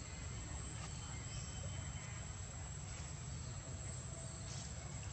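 Insects droning steadily as a thin, unbroken high tone over a low outdoor rumble.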